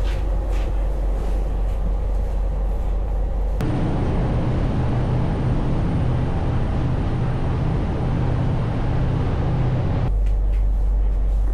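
Steady low drone of a passenger ferry's engines under way, heard inside its cabin. The tone changes abruptly about three and a half seconds in and changes back near the end.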